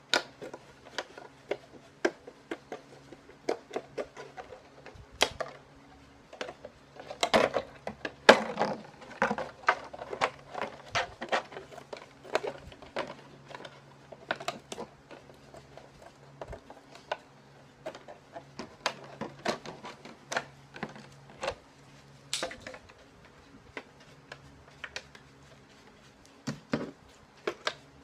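Shears snipping through thin milk-jug plastic: irregular sharp snips and crackles of the plastic, denser and louder about seven to nine seconds in, over a faint steady low hum.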